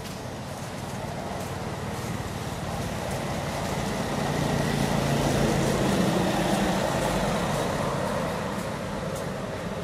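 A motor vehicle passing by: its engine hum and road noise swell to a peak about five or six seconds in, then fade away.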